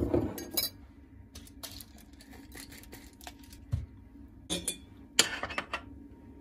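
A metal teaspoon clinking against a ceramic mug and a glass jar as instant coffee granules are spooned into the mug: scattered short clinks and knocks, one dull knock a little under four seconds in, and the loudest run of clinks about five seconds in.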